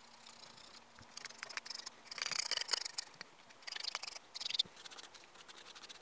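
Hand sanding a Stanley No. 3 plane's rosewood tote with sandpaper: bursts of short, scratchy rasping strokes, the loudest about two seconds in and again around four seconds in. The sanding takes off the old, grimy finish before refinishing.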